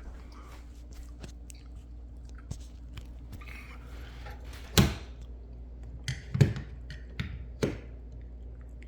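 Scattered clicks and soft knocks of handling, with a few louder thumps about five, six and a half and seven and a half seconds in, over a faint steady low hum.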